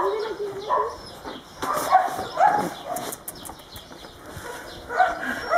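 Dogs whining and yelping, a string of short high-pitched calls that come in clusters, the busiest about two seconds in and again near the end.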